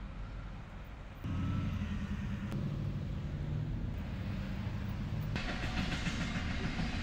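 Car on the road: engine and road noise, which steps up louder about a second in, with more tyre and wind hiss from about five seconds in.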